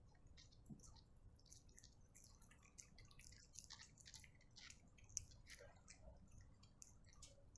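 Cat chewing soft, moist mash: a faint, quick run of wet smacking and clicking mouth sounds, with one louder click about five seconds in.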